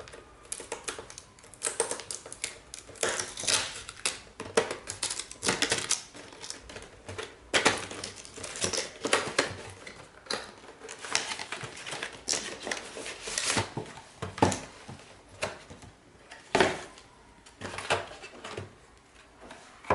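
Irregular clicks, taps and rustles of a microphone's packaging and parts being handled as it is unboxed.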